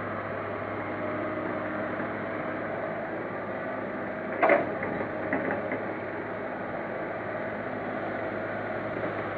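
Excavator's diesel engine running steadily while it loads a dump truck. About halfway through comes one sharp clank, then a few lighter knocks, as the bucket's load of soil drops into the truck's steel bed.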